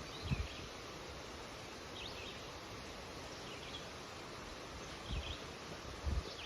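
Wind rustling through birch leaves as a steady hiss, with a songbird giving short high chirps about every second and a half. A few soft low thumps come near the start and again near the end.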